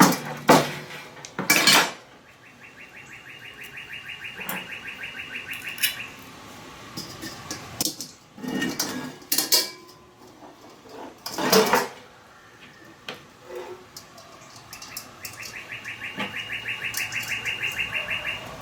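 Metal parts and fasteners of a Weber Smokey Joe grill clinking and knocking as a leg is bolted on with screws, washers and wing nuts. Twice, for about four seconds each, a bird trills: rapid, evenly repeated high chirps that grow louder.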